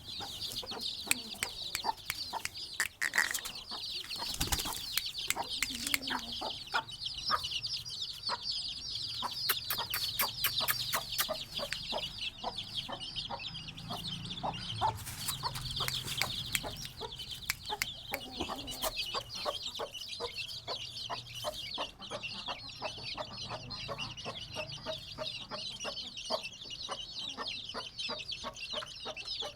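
Chickens clucking in short, scattered calls over a dense, steady high-pitched chirping.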